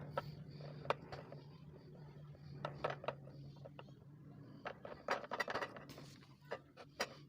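Small hard objects clicking and clinking as they are handled, in scattered taps with a busier clatter about five seconds in, over a steady low hum.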